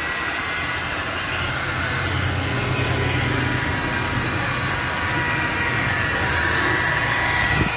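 Corded electric rotary polisher spinning its buffing pad against a scooter's plastic body panels, a steady motor whine with a low hum that grows stronger about a second and a half in.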